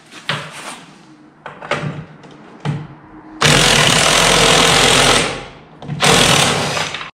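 Cordless impact wrench hammering on a nut of a snowmobile ski's carbide runner, in two bursts, the first about two seconds long and the second about a second, to run off the rusted hardware; a few knocks of the tool being fitted to the nut come before.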